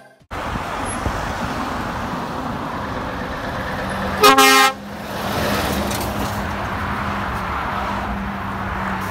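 Air horns of a Scania S730 truck sounding one short blast of about half a second, around four seconds in, as the truck passes. Steady road and traffic noise runs underneath.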